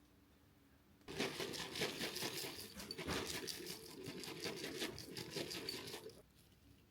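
Crinkling, rustling handling noise, like material or packaging being crumpled, for about five seconds; it starts about a second in and stops abruptly.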